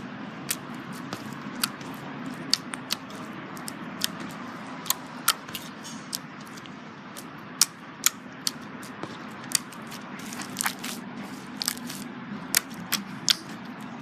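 Crunchy slime being squeezed and pressed, giving irregular sharp crackles and pops, a few a second, over a steady low hum.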